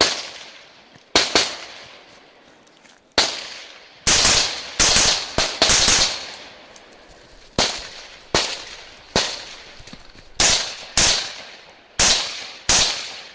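A string of rifle shots, about fifteen, fired singly and in quick pairs at an irregular pace, each shot trailing off in an echo.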